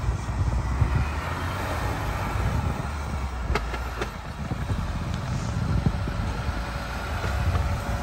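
Off-road truck engine running at low speed while driving slowly through deep snow. There are a couple of sharp knocks about three and a half to four seconds in.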